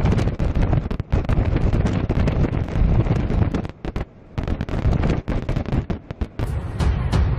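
Storm wind buffeting the microphone: heavy, gusty low rumble with sudden thumps, dropping out briefly about four seconds in.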